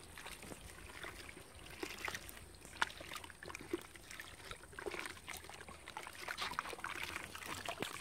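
Gloved hands mixing cement powder and water into mortar in a plastic bucket: faint, irregular wet sounds and small scrapes.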